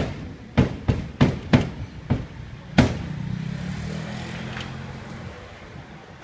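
A cleaver chopping roast duck on a thick round wooden chopping block: seven sharp chops in the first three seconds. They are followed by a low steady hum that fades out about five seconds in.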